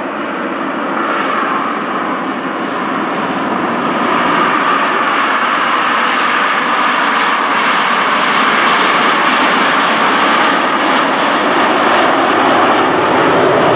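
Formation of Aermacchi MB-339 PAN jet trainers flying past, their Rolls-Royce Viper turbojets giving steady jet noise. The noise grows louder over the first few seconds, then holds.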